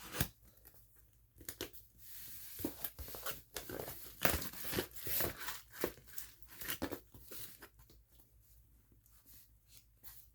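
A dull kitchen knife cutting into and tearing open a shipping package: irregular bursts of tearing, crinkling and scraping with a few sharp knocks, dying down to lighter handling near the end.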